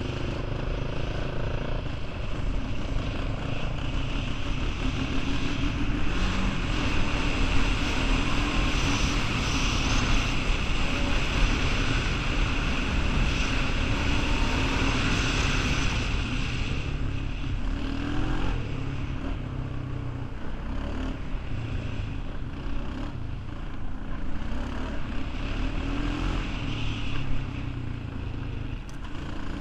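Honda 420 ATV's single-cylinder four-stroke engine running as it rides along a dirt trail, steady throughout, a little louder in the first half and easing somewhat after about halfway.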